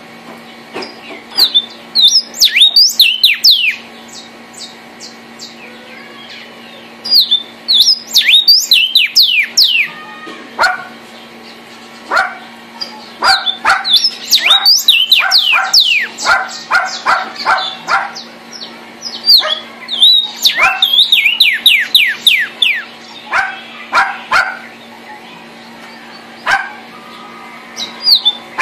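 Vermilion cardinal singing in repeated phrases of quick, down-slurred whistles, some phrases high and some lower, with short pauses between them. A steady low hum runs underneath.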